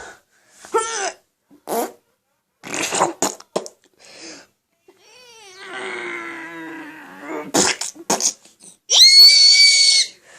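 A run of fart sounds for a pretend bathroom scene: several short blasts, then a long wavering one in the middle, and a loud, shrill one near the end.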